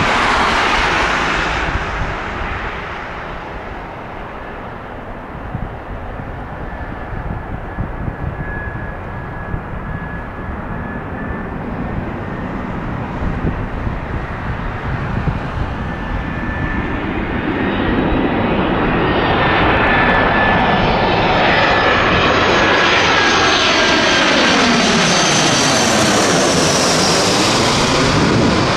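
Airbus A318 airliner on final approach, its jet engines growing steadily louder as it closes in and passes low overhead, with a thin high whine over the rush. Near the end comes a swirling sweep that falls in pitch as it goes over.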